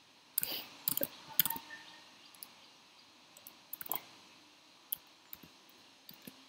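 Clicking on a laptop: a quick cluster of sharp clicks in the first second and a half, then single clicks around four and five seconds in.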